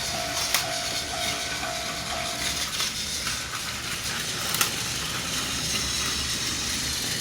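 Plarail toy level crossing's electronic bell ringing a single tone about twice a second, stopping a little under three seconds in, over the steady whir of battery-powered Plarail toy trains running on plastic track. Two sharp clicks, one just after the start and one about four and a half seconds in.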